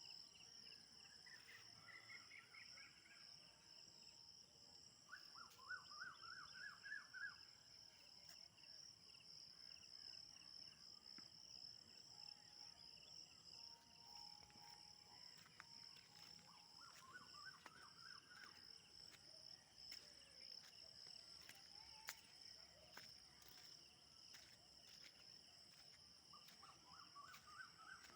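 A faint, steady high-pitched insect chorus. Over it a bird sings the same short phrase of quickly rising notes four times, spaced well apart.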